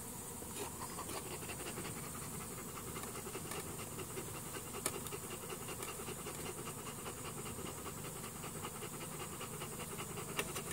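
A dog panting quickly and steadily, close to the microphone.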